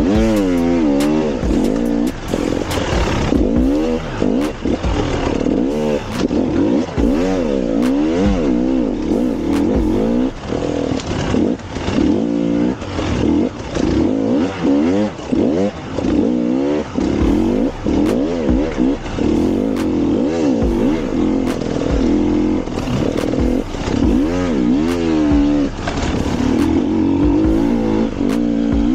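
Off-road vehicle engines revving hard, their pitch rising and falling again and again, with scattered short knocks and clatter.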